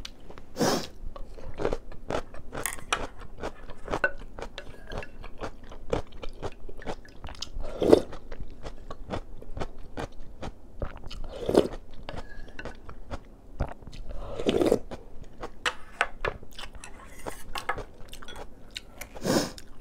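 Close-miked chewing and crunching of kkakdugi (cubed radish kimchi), a quick run of crisp bites, with a few louder, longer slurps of seolleongtang broth from a spoon.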